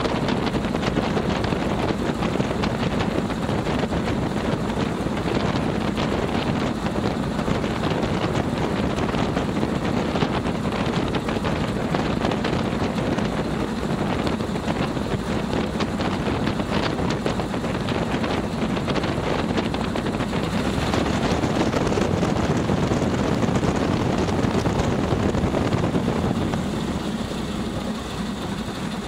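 Boeing Stearman biplane's radial engine running steadily at low taxi power, with propeller noise. The sound eases a little near the end as the aircraft slows.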